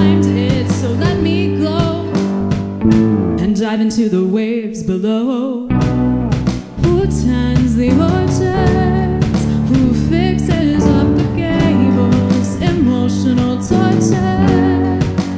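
Live band playing a song, with a woman singing lead over electric guitar, drum kit and keyboard. The bass end drops out briefly about four seconds in and comes back a couple of seconds later.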